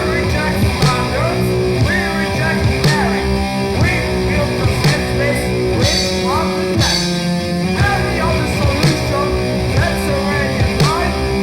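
Raw, noisy grindcore music: distorted electric guitars with sliding pitch bends over drums, played loud and continuously.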